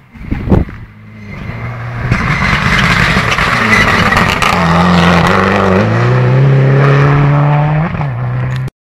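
Rally car approaching and passing at speed, its engine running hard at high revs. The pitch steps up and down several times, with a brief rise and drop near the end before the sound cuts off suddenly.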